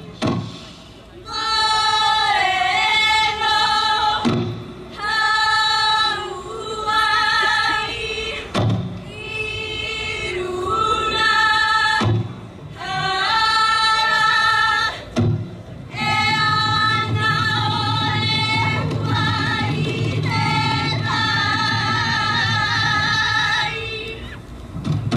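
High voices singing a slow Polynesian song together in long, held phrases about three seconds each, with short breaths between them. A few thumps fall in the gaps between phrases.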